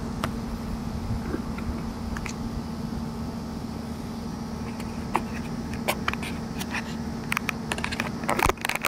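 Steady low mechanical hum with a constant tone, like a fan or distant engine, with a few light clicks and a burst of clattering handling noise near the end.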